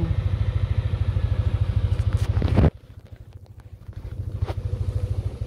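Motorbike engine idling with a steady low rapid pulse. About two and a half seconds in the sound drops away abruptly to a faint background with a few clicks, and the idling pulse gradually returns near the end.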